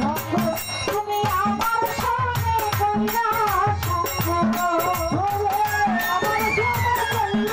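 Live Bengali Baul folk song: a woman singing a wavering melody over drums and rattling, jingling percussion that keep a steady beat.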